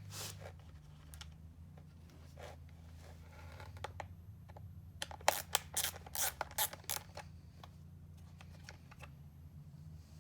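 Small clicks, scrapes and light knocks of a T20 Torx driver backing screws out of a plastic motorcycle fairing vent housing and handling the parts, with a cluster of clicks about five to seven seconds in. A steady low hum runs underneath.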